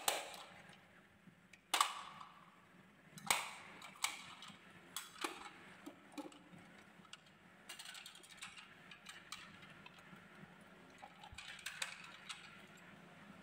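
Toy garbage truck handled on a tabletop: a few sharp clacks in the first four seconds, then a run of lighter clicks from the truck and its tipping body.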